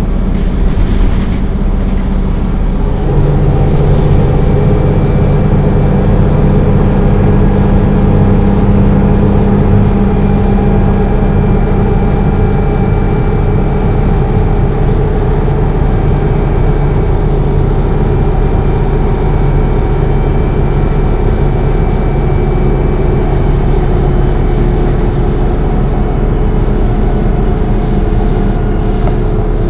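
MAN NL 263 city bus's diesel engine pulling steadily at motorway speed, heard inside the passenger cabin with road and wind noise. The engine note changes and grows stronger about three seconds in, then holds a steady drone.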